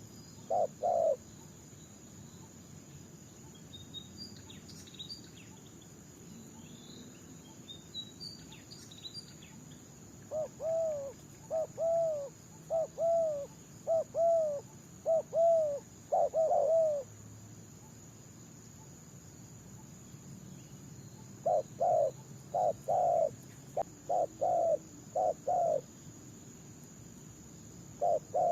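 Spotted doves cooing in repeated runs of short coo notes: a few at the start, a run of arched notes about ten seconds in, another run about twenty-one seconds in, and more at the end. Faint small-bird chirps sound in the gap between, over a steady high thin tone.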